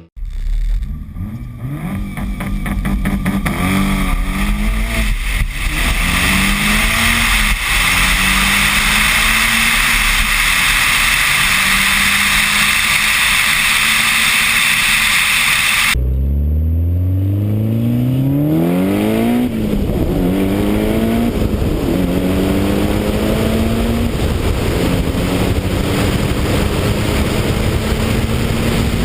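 Turbocharged Mitsubishi Lancer Evolution accelerating hard through the gears, recorded from an outside-mounted camera: the engine note climbs and drops back at each shift. For the first part, heavy wind rush on the microphone all but covers the engine. About halfway through there is an abrupt cut to another run, where the wind rush is much weaker and the rising engine note comes through clearly.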